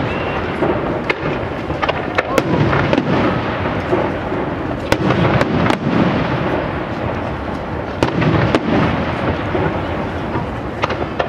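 Aerial fireworks shells launching and bursting in quick succession: a continuous run of booms and crackles with no pause, the heaviest bangs coming about two and a half, five and eight seconds in.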